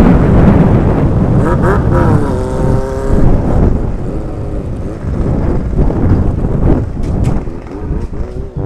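Sport motorcycle engine running under way, its revs rising and falling several times, with a heavy rush of wind and road noise on the microphone.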